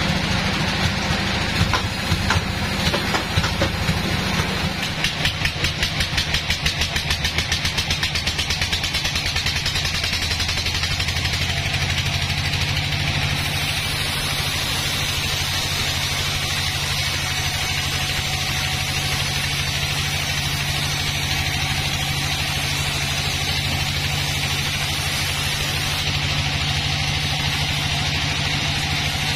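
A band sawmill running and sawing through a teak log. It starts with a fast, even rattle, then about eleven seconds in settles into a steady drone with a low hum.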